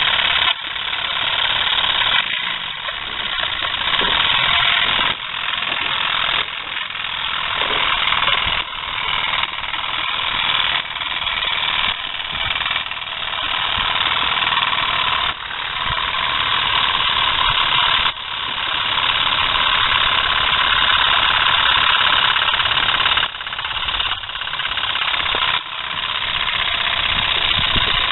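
Steam hissing hard from a small model steam engine and its homemade wood-fired boiler on a first run, in loud surges that drop off sharply and build again every one to three seconds.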